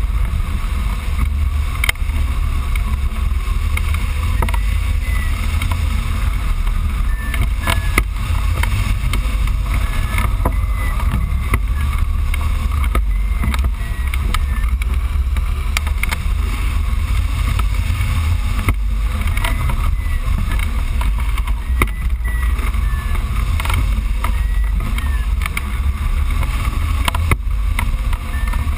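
Airflow buffeting the camera microphone on a hang glider in flight: a loud, steady low rumble of wind. Faint short high chirps come and go.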